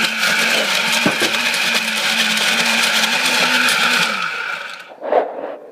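Electric snow cone machine running, its motor humming steadily while it crunches and shaves ice. A little after four seconds it is switched off and the motor winds down, its pitch falling as it fades.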